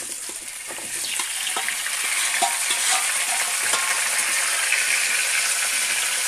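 Raw chicken pieces dropping into hot oil in a kadhai and sizzling, the sizzle swelling over the first couple of seconds and then holding steady. Clinks and scrapes of a spoon against a steel pot as the last pieces are pushed out run over it.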